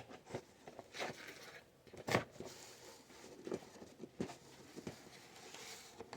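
Merchandise and packaging being handled: scattered light taps, clicks and rustles, the sharpest about two seconds in.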